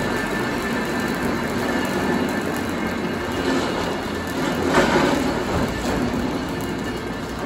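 Koyasan funicular cable car climbing into the upper station: a steady mechanical running noise from the car and its hauling cable, with a faint steady whine and a louder moment about five seconds in.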